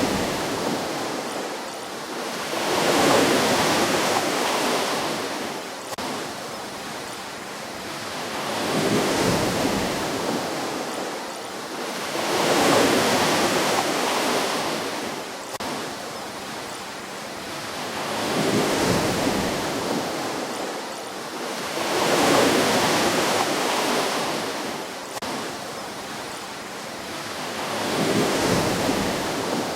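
Ocean waves breaking and washing onto the shore, the rush of water swelling and falling away every three to six seconds.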